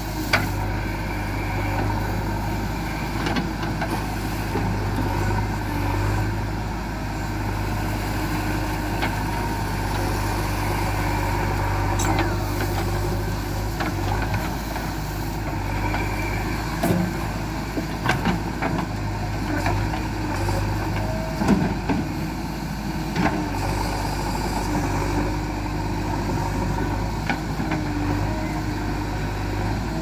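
JCB 3DX backhoe loader's diesel engine running steadily while the backhoe arm and bucket work, with a handful of sharp clanks and knocks from the bucket and arm, the loudest a little past the two-thirds mark.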